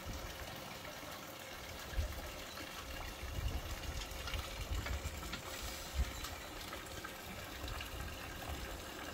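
Water running steadily into a swimming pool from the return jet fed by a solar-powered pool pump. From about two seconds in, low gusts of wind bump on the microphone.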